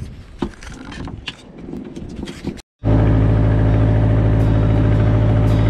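A boat engine running loud and steady at a constant pitch, cutting in abruptly a little before halfway through. Before it, scattered knocks and handling noises.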